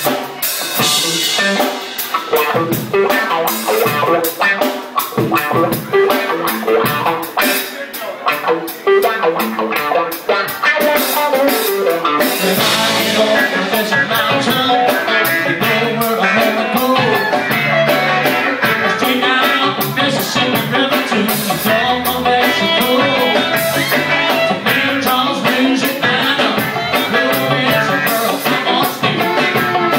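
Live band playing with a steady drum-kit beat, electric guitar and bass, violin and keyboard.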